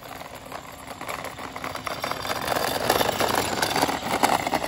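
Razor Power Core E95 electric scooter rolling on rough asphalt: a gritty rolling noise from its wheels that grows steadily louder as it comes close, easing off near the end.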